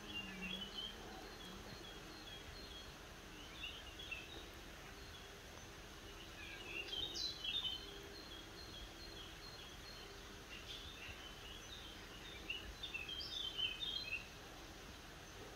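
Wild birds singing in the background: clusters of short, high chirps a little after the start, strongest about halfway through and again near the end, over a faint steady outdoor background noise.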